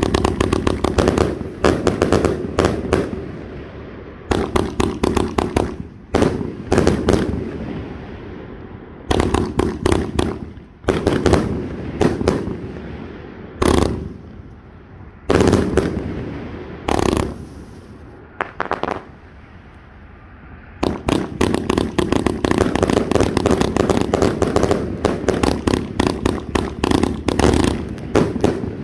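Grogu 232-shot consumer firework cake firing in rapid volleys, each cluster of shots lasting one to two seconds with short lulls between. From about two-thirds of the way through, the shots come densely and without a break.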